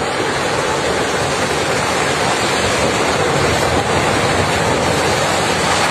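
Landslide on a cut hillside: rock and earth pouring down the slope in a loud, steady rushing rumble.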